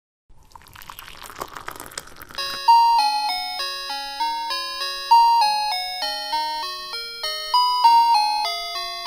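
Background music: a plucked, chiming melody like a music box, note after note ringing and fading, starting about two and a half seconds in. Before it comes a couple of seconds of rushing, splashy noise.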